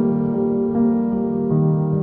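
Slow piano music, each chord held and overlapping the next, with a new note coming in every half second or so.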